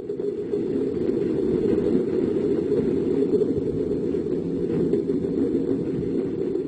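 Low, steady rumble of a heavy diesel engine on construction machinery. It builds up at the start and falls away just after the end.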